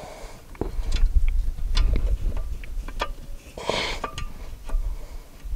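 Scattered metal clicks and clinks, one with a short ring, from clutch parts and tools being handled during a tractor clutch reassembly.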